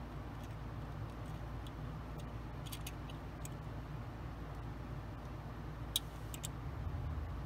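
Small plastic model parts being test-fitted by hand: a few light ticks about three seconds in and a sharper plastic click at about six seconds, over a steady low hum.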